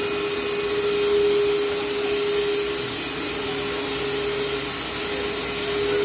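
Carpathian SMSA 110 semi-automatic horizontal band sawmill running, a steady whine over even machine noise.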